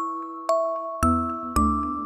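Background music: a gentle bell-like melody, one ringing note about every half second, with low bass notes joining about a second in.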